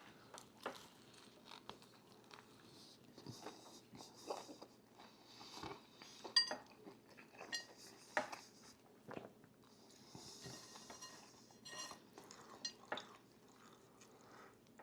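Cutlery clinking and scraping against a breakfast dish at irregular intervals, one clink ringing briefly, with soft chewing in between.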